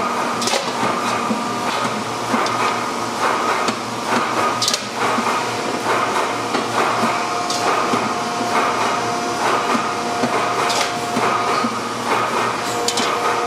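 Stainless steel pressing shop noise: a steady machine din with a few held tones, broken now and then by sharp metal clanks and knocks as a press die closes on a wok blank.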